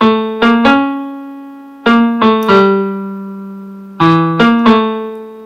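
Piano music: three short phrases of three struck notes each, every phrase left to ring and fade before the next.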